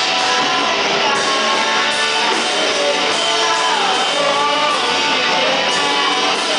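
Guitar music: a guitar strummed steadily through a song.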